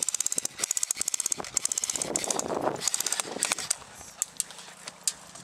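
Airsoft electric gun firing full-auto: rapid mechanical clacking at about fifteen shots a second, in three short bursts, followed by a few single clicks.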